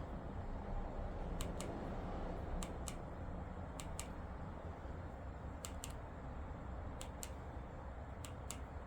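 Buttons on a handheld remote control clicked about six times, each press a quick double click, roughly every second and a half, over a low steady room hum.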